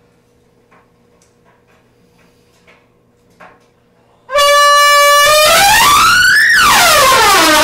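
Trumpet warming up: after a few faint clicks, a loud held note starts about four seconds in, then the pitch slides smoothly up to a high note, back down, and starts up again.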